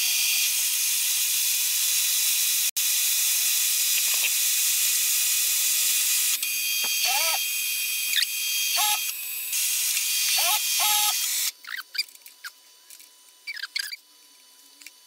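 Mist coolant hissing steadily from the flexible nozzle at the milling machine, with short squeaks over it. The hiss cuts off about eleven seconds in, leaving brief quieter hisses and squeaks.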